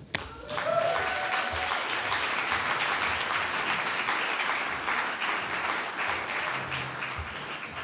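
Audience applauding, a dense patter of many hands that starts just after the introduction and slowly thins and fades near the end.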